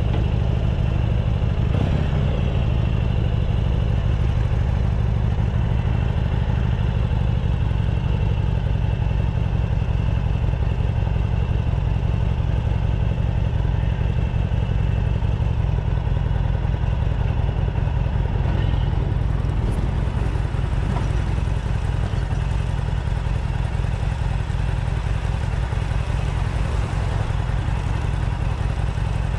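Harley-Davidson Sportster SuperLow 883's air-cooled V-twin running steadily through its stock exhaust, its sound sitting mostly low and holding an even engine speed.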